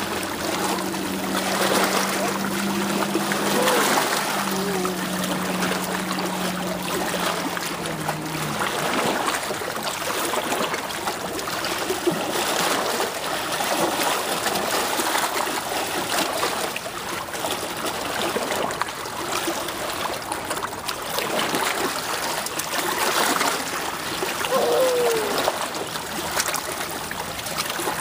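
Shallow lake water trickling and splashing over a rock ledge as a toddler kicks and pats at it, with many small splashes. A steady low hum runs underneath and stops about eight seconds in.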